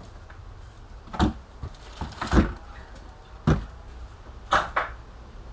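Five irregular knocks and clunks, with the second one loudest: tools and driveshaft parts being handled and set down while work starts on the CV joint.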